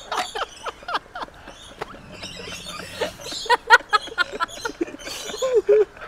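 A flock of aviary birds calling, many short chirps and squeaks overlapping at random.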